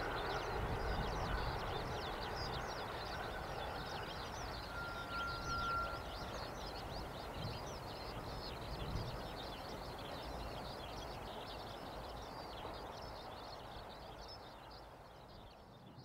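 A train's rumble dying away into the distance after passing, with rapid high chirping of small birds over it. A short faint steady whistle comes about five seconds in.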